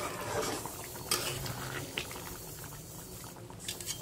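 Chicken curry bubbling in a kadhai while a ladle stirs it, with a few sharp clinks of the ladle against the pan, about a second in, two seconds in and near the end.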